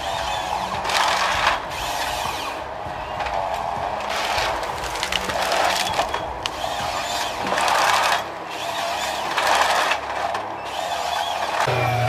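Forestry harvester head processing a felled tree stem: the stem is fed through in repeated loud crunching, scraping bursts about every one to two seconds as the delimbing knives strip the branches, over the faint hum of the machine's engine and hydraulics. A steady low engine hum starts near the end.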